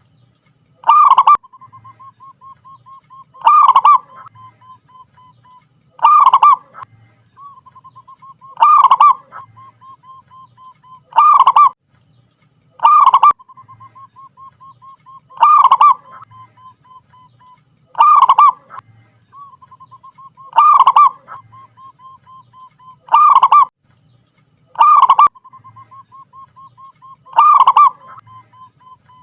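Zebra dove (perkutut) cooing: a loud coo about every two and a half seconds, with a quieter rapid string of short cooing notes between them.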